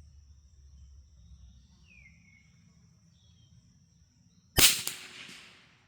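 A single shot from a Brno Model 1 .22 LR bolt-action rifle about four and a half seconds in: a sharp crack that dies away over about a second.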